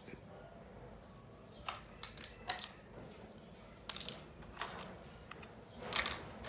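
Small plastic toy pieces clicking and rustling as a miniature makeup set is handled and unboxed: a handful of light, irregular clicks, the loudest near the end.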